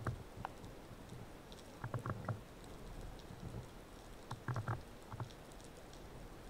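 Faint underwater background with a few short clusters of clicks and knocks, two seconds or so apart.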